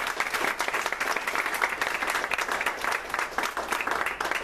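A small audience applauding to welcome a speaker: many hands clapping at once, dense and steady.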